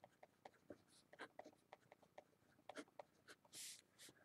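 Marker pen writing on paper: faint, quick scratches and taps of short pen strokes, with one brief hiss about three and a half seconds in.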